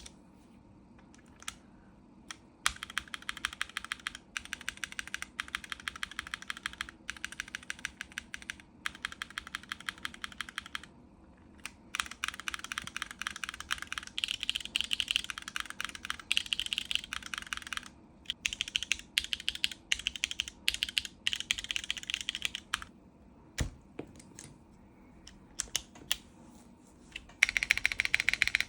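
Typing on a mechanical keyboard with thick PBT keycaps: runs of fast keystrokes broken by short pauses, with one deeper thud about two-thirds of the way through and a louder run near the end.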